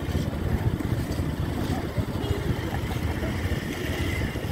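Low, steady rumble of motor vehicles running.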